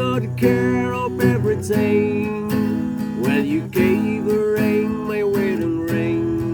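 Background music: the instrumental intro of a slow love ballad, with strummed guitar chords under a melody line.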